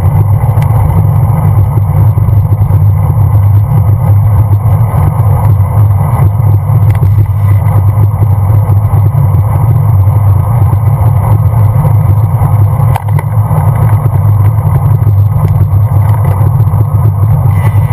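Steady, loud low rumble of wind buffeting and road vibration on a bicycle-mounted GoPro camera while riding along at speed.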